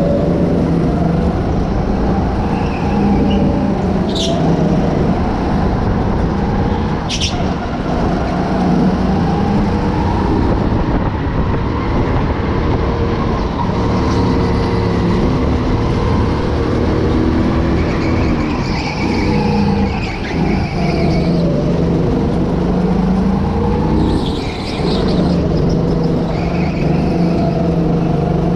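Go-kart engines running hard on a lap, the pitch rising and falling repeatedly as the kart speeds up and slows for corners, with other karts close by. Two sharp knocks come about four and seven seconds in.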